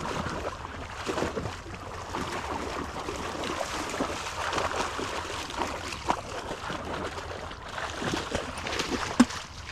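Water splashing and sloshing in irregular little bursts, with one sharp knock near the end.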